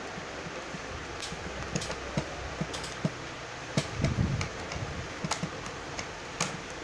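Screwdriver and tricycle parts being handled during assembly: scattered small clicks and taps of tool on plastic and metal, busiest about four seconds in, over a steady background hum.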